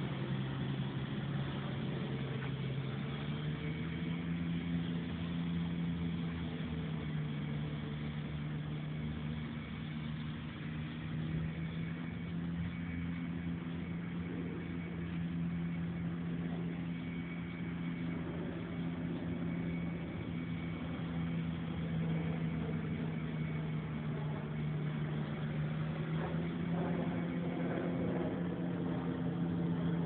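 An engine running steadily, its hum stepping up in pitch about three seconds in and then holding.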